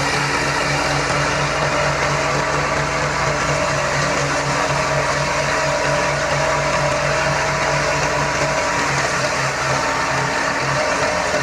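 Wheat thresher running under tractor power: a loud, steady mechanical drone with a low, evenly pulsing hum beneath it.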